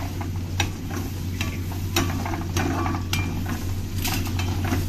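Irregular metal clicks and knocks of a utensil against cookware, several times over the few seconds, over a steady low hum.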